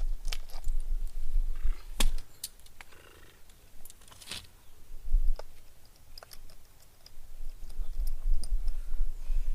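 Metallic clicks and short rattles of a chainsaw's bar and chain being worked by hand with tools, loosening the stuck chain to try to free it. The clicks are scattered, the loudest about two seconds in and again a little after four seconds, over an uneven low rumble.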